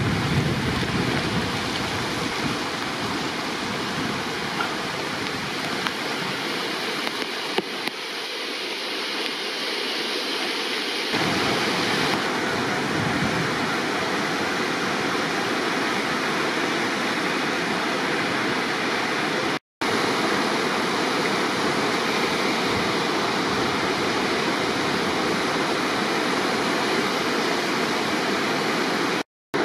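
Floodwater of a river in spate rushing through white-water rapids, a loud steady rush of water. It changes character after a cut about a third of the way in and drops briefly to silence twice at edit cuts.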